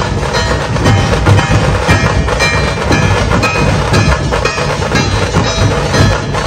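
Dhol tasha ensemble playing a loud, fast, driving rhythm: deep booming dhol barrel drums under rapid, crisp strokes of tasha snare drums.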